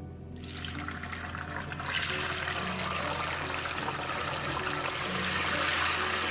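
Tofu cubes sizzling in hot oil in a frying pan as they are tipped in. The sizzle starts about a third of a second in, grows louder about two seconds in, then holds steady.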